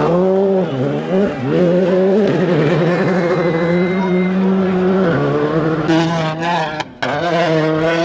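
Rally car engines driven hard on loose gravel. The pitch dips and climbs with lifts and gear changes, then holds at high revs, over a hiss of gravel thrown by the tyres. A sudden break comes about seven seconds in, and another car follows.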